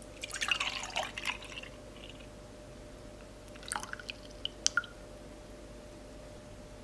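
Liquid being poured and dripping, a splashy spell of about a second and a half near the start, then a few light drips and clicks around four seconds in.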